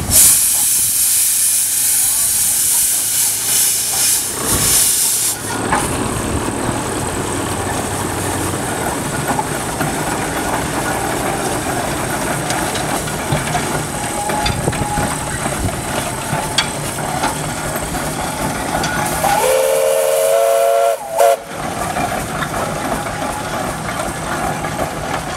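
Illinois Thresher Company steam traction engine getting under way: loud steam hissing for the first five seconds or so, then the engine running with a steady mix of hiss and mechanical noise. Late on, a steam whistle sounds once for about two seconds.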